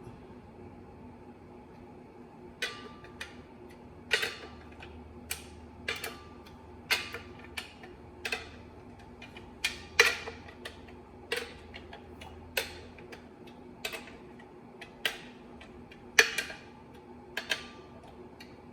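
Hand socket ratchet clicking in short strokes, a sharp metallic click with a brief ring roughly once a second, as the clutch bolts are run down. A faint steady hum lies underneath.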